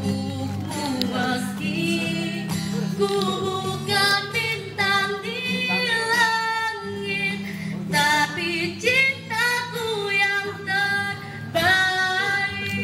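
A female voice sings an Indonesian pop love song into a microphone over amplified backing music, with long held notes that waver and glide between phrases.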